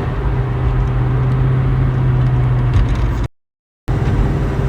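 1969 Mustang driving at about 55 mph under light throttle, with road and engine noise and a steady low howl from below and behind the cabin that fades out about three seconds in. The owner's best guess is a fault in the 9-inch rear end's third member, though the transmission is also a suspect. The audio cuts out briefly near the end.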